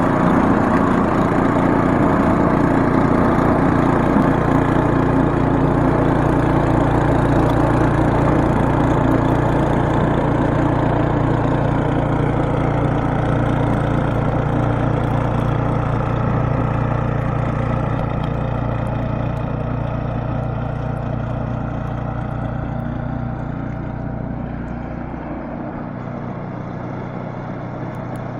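Snowblower engine running steadily while it throws snow, gradually getting quieter over the second half.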